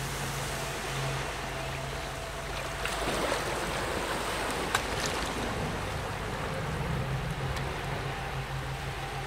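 Steady rushing water noise like surf, with a low hum that comes and goes beneath it and a single sharp tick about halfway through.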